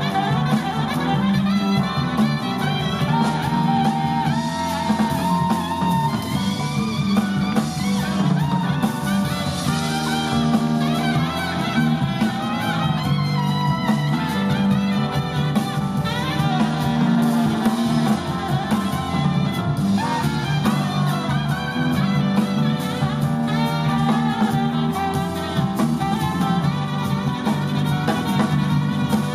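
Live jazz band playing an instrumental passage, with horns over a drum kit.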